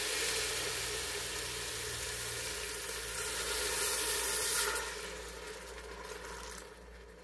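Chuck roast searing in the hot inner pot of an Instant Pot on sauté, sizzling steadily. Water poured in from a cup about four seconds in makes a louder, brighter hissing sizzle, and the sizzle then dies down near the end.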